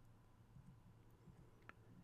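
Near silence: faint room tone, with one soft click near the end.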